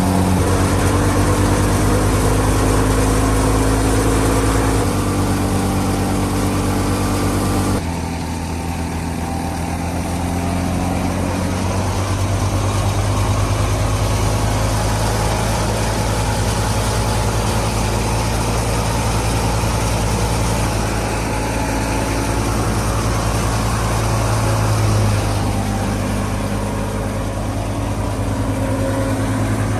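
Al-Ghazi diesel tractor engine running steadily under constant load while it drives a wheat thresher. Its tone shifts abruptly about five and eight seconds in.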